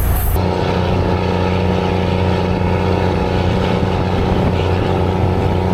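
Engine of a moving chicken bus heard from inside: a steady, loud engine hum with several held tones, changing abruptly about half a second in.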